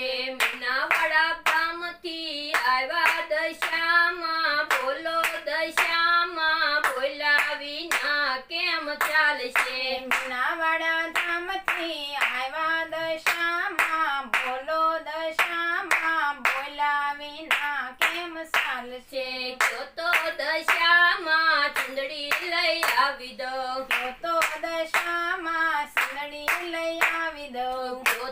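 Gujarati devotional bhajan: singing over a steady beat of hand claps, about two to three claps a second.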